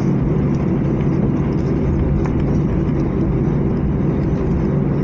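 Jet airliner cabin noise while taxiing after landing: a steady rumble with constant low hums from the engines at low power.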